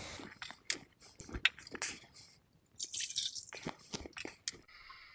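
Plastic milk pail and measuring jug being handled on a table: scattered light clicks and knocks of plastic as the pail is lifted and set down.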